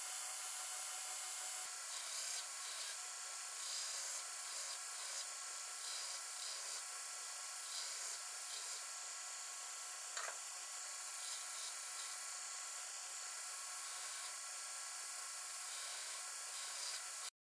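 Belt grinder's abrasive belt grinding grooves across the edge of a steel Damascus billet, a steady grinding that cuts off abruptly near the end. The grooves are being cut to form a ladder pattern.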